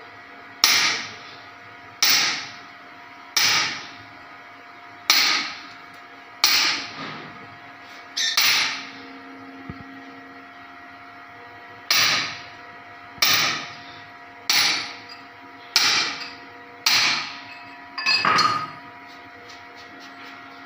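Hand hammer driving a chisel into a cement floor edge: about a dozen sharp, ringing blows, roughly one every second and a quarter, with a pause of a few seconds in the middle.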